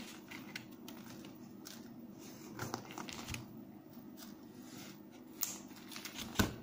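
Faint handling sounds of thick nylon fishing line and pliers being worked by hand: light rustling and a few small clicks, with one sharper click near the end as the pliers are set down.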